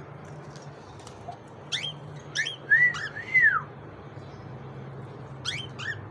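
Cockatiels whistling: a few short upward-sweeping chirps, then two arching whistles, then two more chirps near the end.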